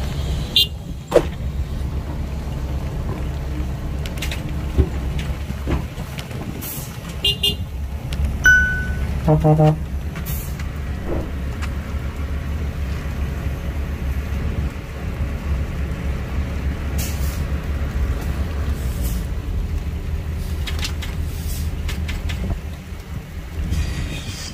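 Heavy diesel machinery running steadily with a deep, constant rumble, broken by several sharp metallic knocks and, about nine seconds in, a brief pitched tone lasting about half a second.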